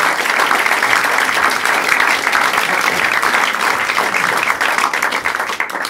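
Audience applauding, a dense, steady clatter of many hands clapping that cuts off suddenly at the very end.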